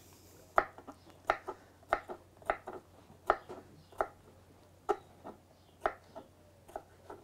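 Kitchen knife chopping cucumber on a wooden chopping board: slow, irregular knocks of the blade against the wood, roughly one or two a second.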